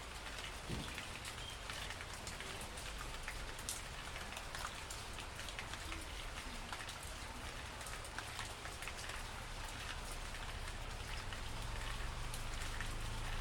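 Gentle, steady rain falling on broad mango leaves and creepers, with many separate drops ticking among the hiss. A faint low rumble grows toward the end.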